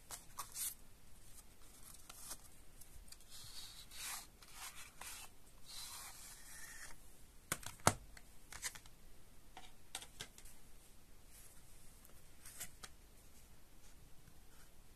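A cardboard slipcase slid off a plastic CD jewel case, a faint scraping rustle lasting a few seconds, then the jewel case handled, with a sharp plastic click about eight seconds in and a few lighter taps after.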